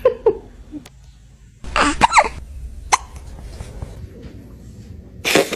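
A cat hiccupping: short, sharp hiccups spaced out, with a louder, longer burst about two seconds in and another near the end.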